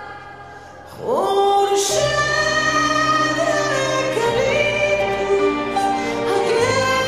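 Music: a singing voice holding long notes over a steady low drone. The music dips quieter at first, then the voice swells back in with an upward slide about a second in, and the drone enters about two seconds in.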